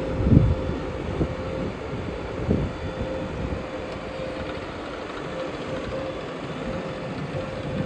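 Diesel engine of earthmoving machinery running steadily, with a couple of short low thumps, one about half a second in and one about two and a half seconds in.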